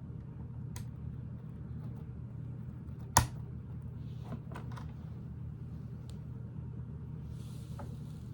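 Plastic Lego pieces clicking and tapping as they are handled and pressed into place, with one sharp, loud click about three seconds in, over a steady low hum.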